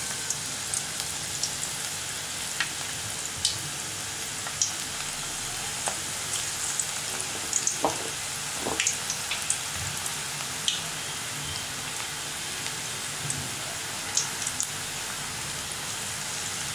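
Onion pakodas deep-frying in hot oil: a steady sizzle with many scattered sharp pops and crackles.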